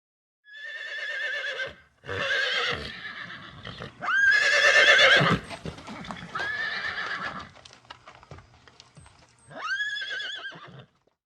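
Horse whinnying five times, each a shaky, quavering call of about a second, the middle one the loudest, with faint clicks between the last two calls.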